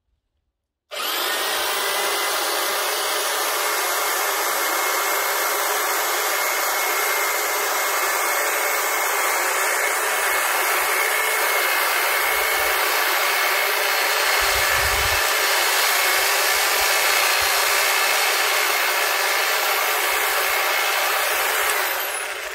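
Titan long-reach hedge trimmer starting about a second in, its motor and reciprocating blades running steadily as it cuts through the hedge, then running down near the end.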